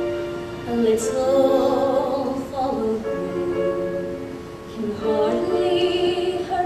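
Slow sung ballad with instrumental accompaniment: a singing voice holding long notes with vibrato, easing off briefly past the middle before rising again.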